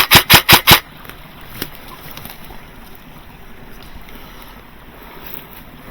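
Airsoft gun firing a rapid string of shots, about six a second, as suppressive fire, stopping under a second in; after that only faint steady wind-like background noise.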